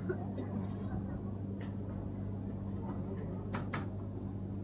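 Metal spatulas scraping and tapping on the steel cold plate of an ice cream roll station, with two sharp clicks close together about three and a half seconds in, over a steady low hum.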